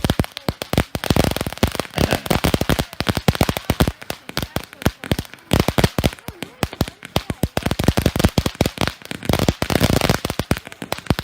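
Phantom Uproar consumer fireworks cake firing a rapid, unbroken barrage of sharp bangs and crackling reports.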